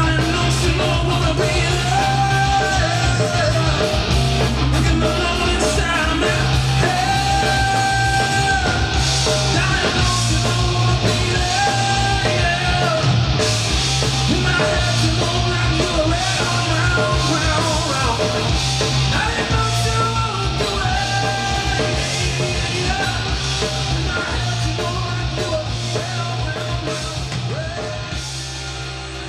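Live rock band playing: a male singer over electric guitar, bass guitar and drums, fading out near the end.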